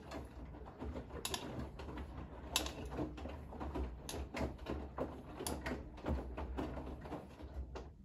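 Bosch front-loading washing machine tumbling a full load of wet laundry: a low steady motor hum under sloshing and the clothes flopping in the drum, with sharp clicks and knocks every second or so. The drum stops just before the end.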